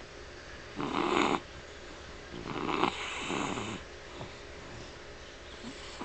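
A sleeping dog snoring: a short snore about a second in, then a longer one near the middle.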